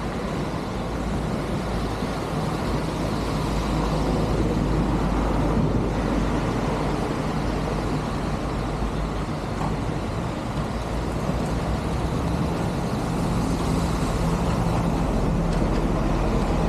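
Heavy rain falling steadily onto floodwater and pavement, a dense even hiss with a low steady hum underneath.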